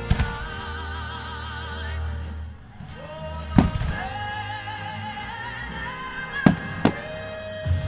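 Firework bangs over operatic music with a high sung voice. The sharp bangs come near the start, about three and a half seconds in, and twice in quick succession near the end.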